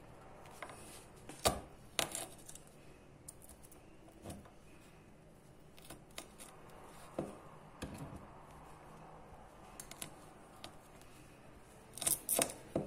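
Drinking glass pressed and knocked down onto peeled garlic cloves to crush them: scattered light knocks and clicks, with a quick run of several near the end.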